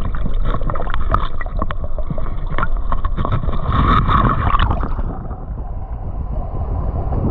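Muffled underwater sound through an action camera's housing, dense with small clicks and crackles from water and rock. About five seconds in the camera comes out of the shallow water and the sound turns to a steadier rush of water and wind noise on the microphone.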